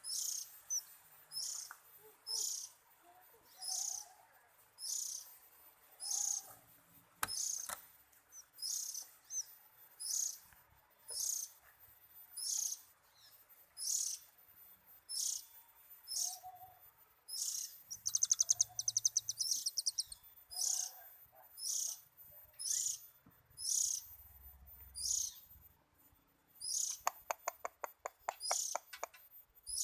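Oriental magpie-robin (kacer) calling: short high notes repeated about once a second, with a fast trill partway through and a harsher rattling trill near the end.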